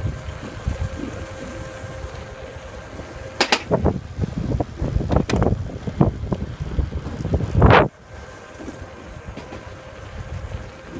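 Wind buffeting the microphone of a camera moving along a concrete path, over a steady low rolling rumble and a faint steady whine. Several louder gusts come in the middle, the loudest cutting off suddenly about eight seconds in.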